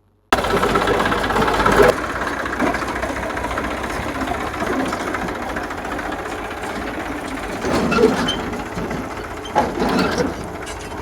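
JCB 3DX backhoe loader's diesel engine running under working load, with louder surges and a few metallic knocks and clatters.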